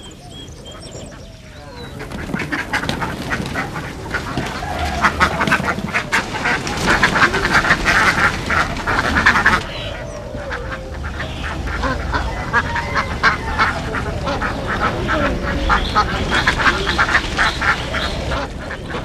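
A flock of ducks quacking and chattering all at once, many overlapping calls. The noise builds about two seconds in, eases briefly about halfway through, then swells again.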